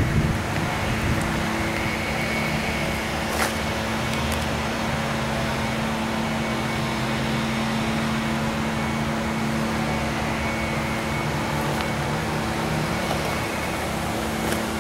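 A steady mechanical hum from a running motor, with two constant low tones under a light hiss; one faint click about three and a half seconds in.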